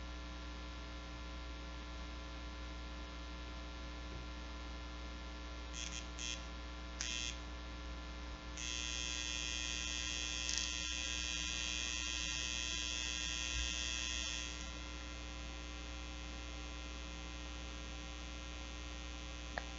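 Steady electrical mains hum with many even overtones. A few faint brief scratchy sounds come about six seconds in, then a steady hiss joins the hum for about six seconds in the middle and stops.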